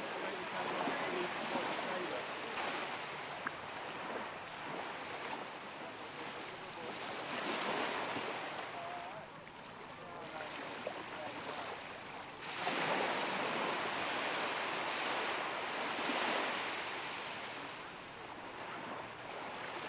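Water washing and splashing against a small boat's hull, swelling and easing every few seconds, with wind on the microphone.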